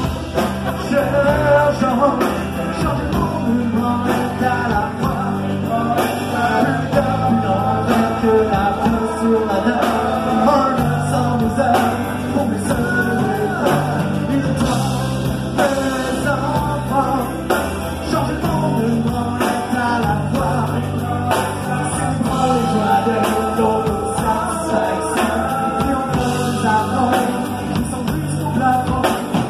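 A rock song with singing, played by a band, running loud and steady throughout.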